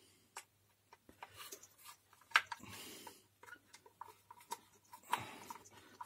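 Scattered small clicks and scraping as a screwdriver turns screws into the plastic motor housing of a POLTI Lecoaspira 705 AL vacuum cleaner, with handling noise from the housing. A slightly louder click comes about two and a half seconds in, followed by a brief scratchy rub.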